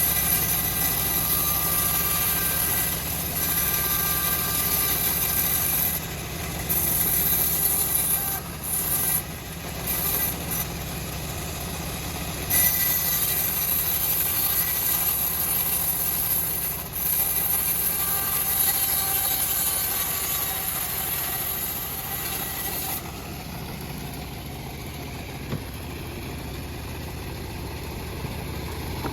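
Engine-driven homemade band sawmill running steadily, with the high hiss of the blade sawing through a teak log that swells and eases in stretches. Near the end the hiss falls away and the machine runs on more quietly.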